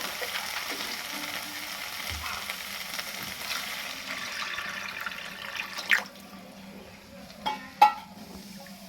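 Spice paste sizzling in hot oil in a pan, with water just added, and the sizzle dying away about five to six seconds in. A sharp knock follows at about six seconds, then two more near the end.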